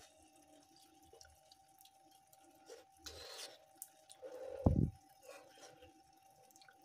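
Quiet eating sounds: small clicks of a utensil and chewing, with one dull thump about two-thirds of the way through, over a faint steady hum.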